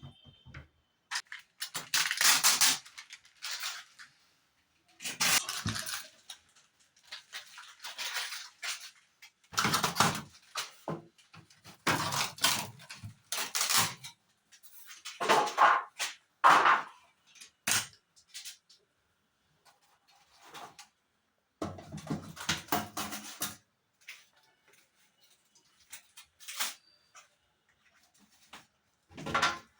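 Irregular handling noises: rustles, scrapes and knocks in bursts a second or two long, with short quiet gaps between them.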